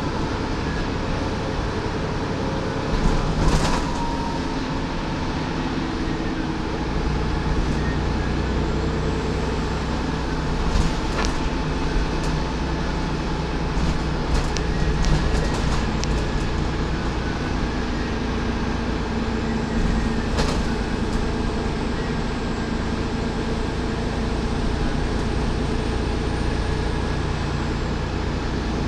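Dennis Trident 2/Plaxton President double-decker bus under way, heard from the upper deck: a steady diesel engine and road noise, with the low rumble growing heavier about seven seconds in. Sharp knocks and rattles from the bodywork come now and then.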